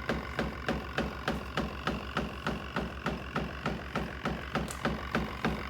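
Portable twin-tub washing machine running: a steady motor hum with sharp clicks repeating evenly about four times a second.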